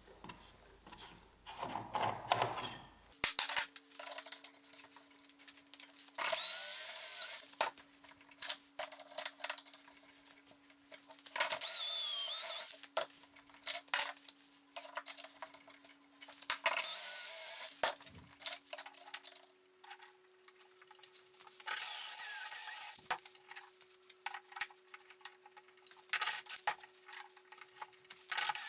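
A power tool cutting wood in short bursts of about a second, roughly every five seconds, with clicks and knocks of handling between them and a faint steady hum in the gaps.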